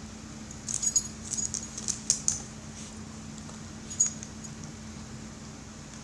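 A dog gnawing on a bone: a quick run of sharp crunching clicks, then one more about four seconds in, over a steady low hum.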